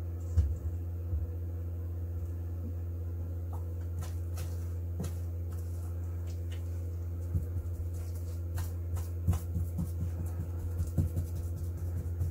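A steady low hum, with scattered light clicks and taps from hand work with a small tool, more frequent in the second half.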